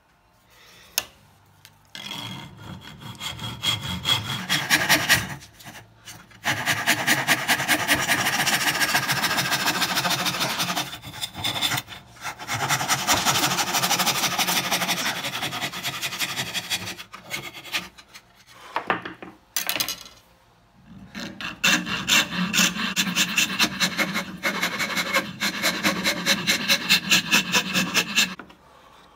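Hand file rasping a hand-carved rosewood saw handle in back-and-forth strokes, in several runs with short pauses between them; the last run goes at about two strokes a second.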